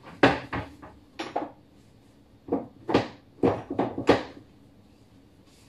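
Kitchen clatter of things being handled: a run of sharp knocks and clinks, about eight in all, the loudest just after the start and again around three to four seconds in.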